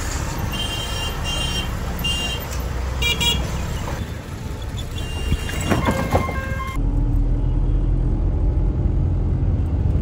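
Street traffic at a railway level crossing, with vehicle horns honking in several short toots over the first few seconds. About two-thirds of the way through, it cuts suddenly to the steady low drone of a car driving, heard from inside the cabin.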